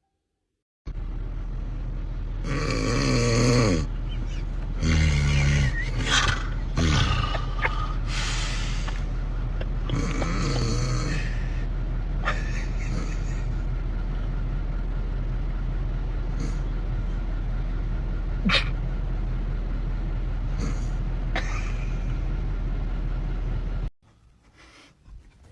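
Snoring: about five loud, rough snores in the first eleven seconds over a steady low hum and hiss. After that comes the hum alone with a few sharp clicks, and it all cuts off suddenly near the end.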